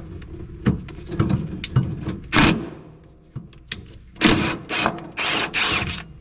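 Irregular metal clicks, knocks and short scrapes from handling the worn gas pedal of a 1946 Willys CJ2A at its mount. The pedal is held by a bolt forced through as a friction fit instead of a pin. Several louder rasping scrapes come about midway and in the second half.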